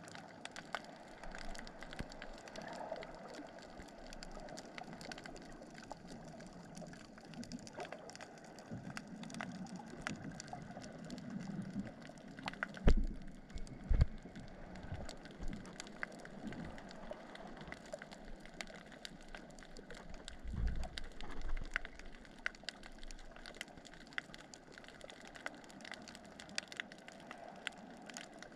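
Underwater ambience: a steady crackle of many faint clicks, with a few loud low thumps, two about halfway through and a short cluster of them about two-thirds of the way in.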